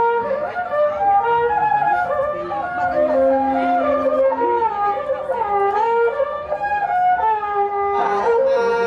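Traditional Khmer wedding music: a man sings a slow, ornamented melody with sliding notes, accompanied by a bowed two-string tro fiddle and a wind instrument.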